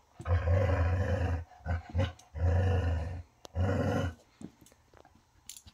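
A dog growling: three long, rough growls with two short ones between, fading out after about four seconds.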